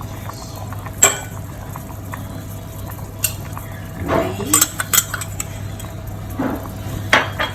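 A spoon or ladle stirring soup in a metal pot, clinking against the pot a few times, most in a quick cluster midway, over a steady low hum.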